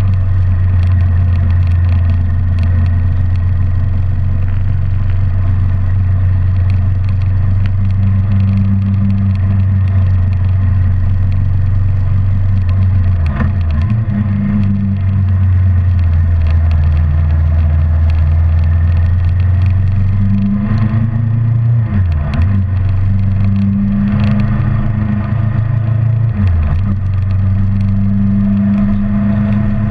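Kawasaki Ninja 650R's parallel-twin engine running steadily under way, its note dipping briefly three times in the second half.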